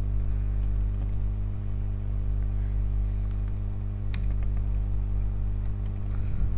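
A few computer keyboard keystrokes as the letters "O & G" are typed, most of them about four seconds in, over a steady low hum.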